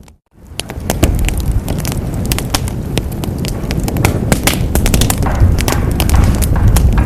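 Wood fire in a fireplace crackling and popping over a steady low roar of flames. The sound drops out briefly just after the start and fades back in.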